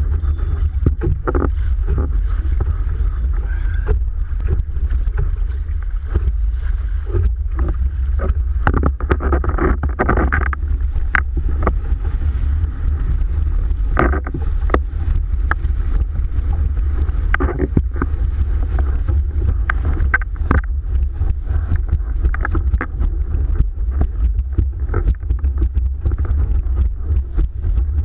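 Heavy wind buffeting on the microphone as a steady low rumble, with frequent sharp slaps and splashes of a windsurf board skimming fast over choppy water.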